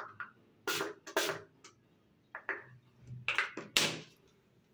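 Pump spray bottle spritzing onto hair in short hissing bursts: two about a second in and two more near the end.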